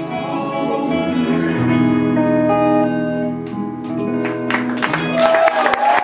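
Live band with electric and acoustic guitars, bass and drums, with singing, holding the last long chords of a slow song until they ring out; audience applause breaks out about four and a half seconds in.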